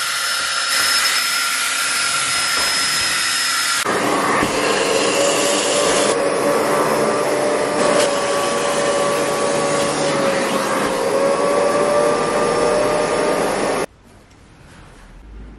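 A cordless drill spins a brush pad scrubbing a fabric car seat with a steady motor whine. About four seconds in, this gives way to the vacuum motor of an upholstery spray extractor, a steady hum and suction as its nozzle draws water out of the seat. The extractor cuts off suddenly near the end.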